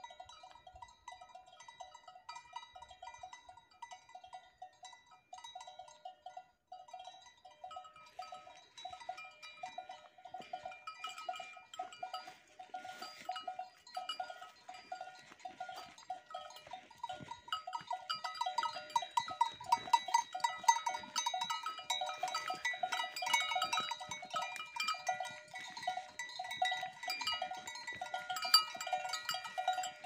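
Cowbells on cattle clanking irregularly as the animals move, several bells ringing at once. The ringing grows louder about eight seconds in and again around eighteen seconds.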